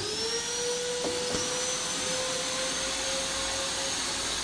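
Industrial wet-and-dry vacuum cleaner's motor spinning up at the start, its pitch rising, then running steadily with a high whine over the rush of suction air.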